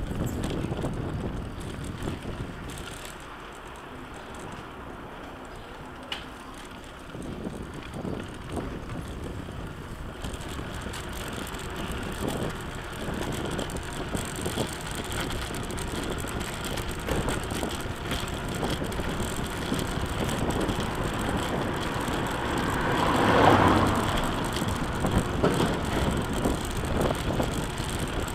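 Recumbent tricycle rolling over cobblestones: tyre rumble with the frame and mounted camera rattling and knocking. It is quieter for a few seconds early on, then grows steadily louder, with a louder swell of noise about three-quarters of the way through.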